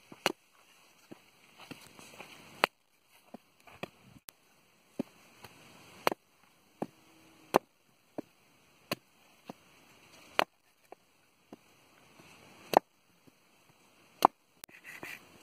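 Machete chopping into the husk of a green coconut to open it: about twenty sharp, separate strikes at uneven intervals, roughly one a second, some much harder than others.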